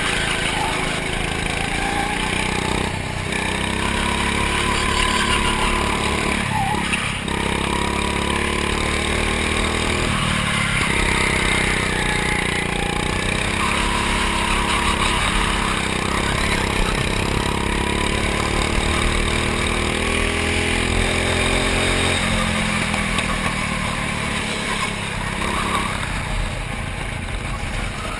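Go-kart engine heard from the kart itself, revving up as it accelerates and dropping in pitch as it slows, several times over.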